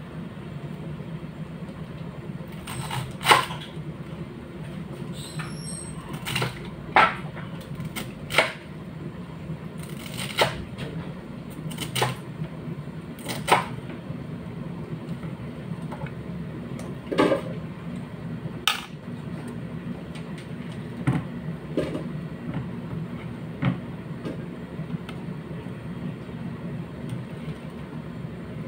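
Chef's knife cutting through a head of cabbage and striking the cutting board: irregular sharp knocks every second or two, sparser near the end, over a steady low hum.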